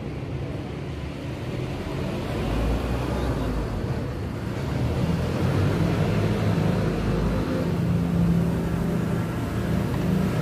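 A motor vehicle engine running, a low rumble with a steady hum that grows louder about two seconds in and stays louder from about five seconds on.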